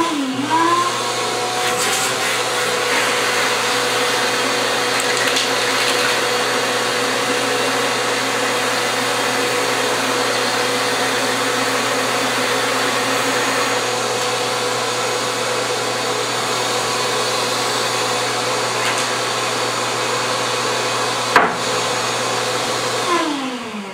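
Wet/dry shop vacuum running steadily, drawing air and paint through a cylinder head's exhaust port to leave gasket-alignment marks. Its motor whine rises as it starts and winds down near the end as it is switched off, with one sharp knock shortly before.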